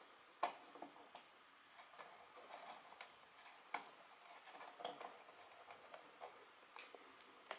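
Faint, irregular clicks and ticks of a small screwdriver turning a screw out of a Pinebook Pro laptop's bottom cover. About a dozen clicks, the sharpest a little under half a second in and near four seconds in.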